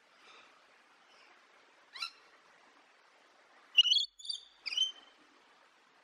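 Rainbow lorikeet giving short, high calls: a faint one at the start, one about two seconds in, then a loud quick run of three from about four to five seconds.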